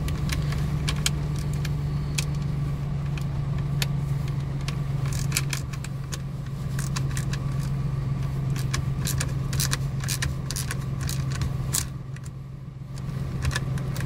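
1990 Chevy truck engine idling, a steady low hum; it runs a little rough, missing. On top, a socket-wrench ratchet clicks in irregular runs while the ignition lock's threaded retaining pin is turned in, with light metal clinks.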